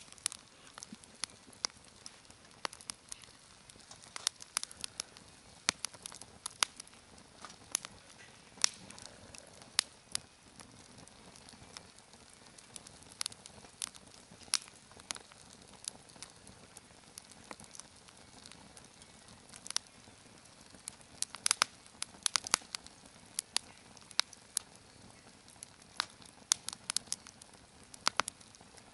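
Wood fire crackling, with irregular sharp pops and snaps coming in clusters over a faint steady hiss.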